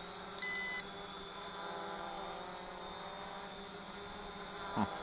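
Flytec T23 quadcopter's brushless motors and propellers whining steadily as it hovers. A single short electronic beep sounds about half a second in and is the loudest thing heard.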